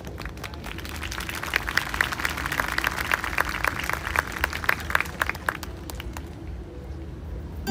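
Audience applauding: scattered claps that swell into a round of applause and die away about six seconds in.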